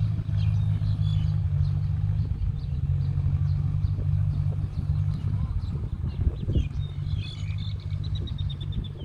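Farm tractor engine running at a steady hum, easing off near the end. Birds chirp over it, with a quick run of high chirps near the end.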